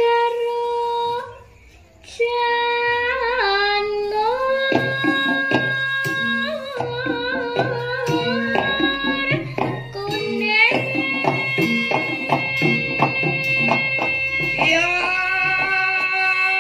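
A young girl sinden sings long held notes into a microphone, sliding between pitches, with a short break about a second in. From about four seconds in, a Javanese gamelan comes in beneath her voice with regular drum and metallophone strokes.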